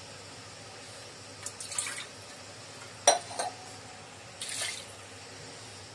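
Water poured from a vessel into an aluminium cooking pot of crab curry, in short splashes, with one sharp clink about three seconds in.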